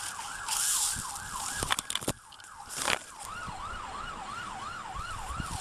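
Emergency vehicle siren in a fast yelp, wavering up and down about three times a second. It fades out briefly about two seconds in and then returns. A few short bursts of noise hit the microphone.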